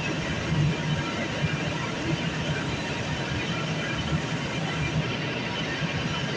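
Steady mechanical hum and rush of basement plant-room machinery, with a few faint steady tones above it.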